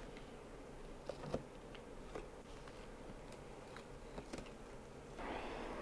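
Faint handling sounds: a few soft taps and clicks as a black foam egg-shipping insert is handled and lifted out of a cardboard box, then a broader rustle near the end.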